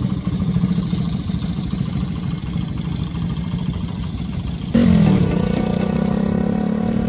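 Honda Ape 100 single-cylinder motorcycle engine idling with a fast, even firing pulse while the bike stands still. About two-thirds of the way in it cuts off suddenly and music starts.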